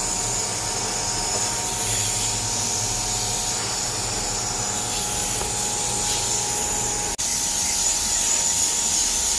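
Electric high-pressure water jet machine running steadily with water spraying in a steady hiss and motor whine. There is a brief break about seven seconds in, after which it is slightly louder.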